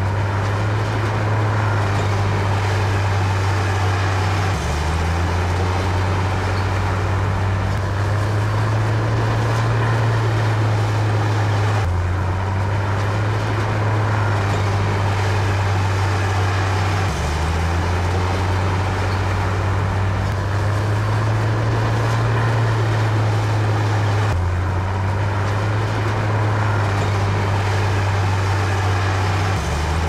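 Heavy diesel engine of a crawler bulldozer running hard and steadily under load, its deep drone stepping abruptly to a new pitch every several seconds.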